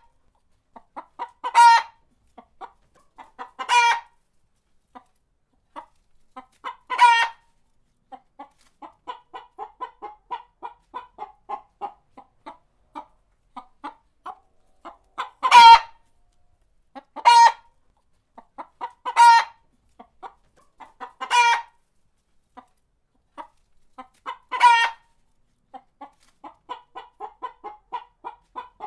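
A chicken clucking. About nine short, loud calls come every couple of seconds, with runs of quick, soft clucks between them near the middle and near the end.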